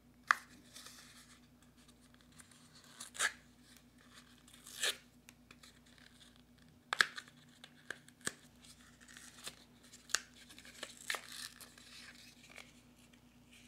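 Small plastic cable packaging being handled and opened: scattered sharp crackles and a faint rustle between them, as a cable is worked free of its wrapping.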